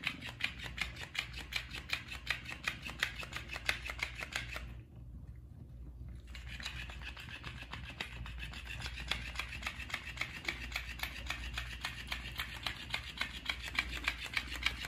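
Electric flopping fish cat toy, its motor-driven tail flapping against a hardwood floor in a rapid, even ticking of about five beats a second; it stops for a moment about five seconds in, then starts flapping again.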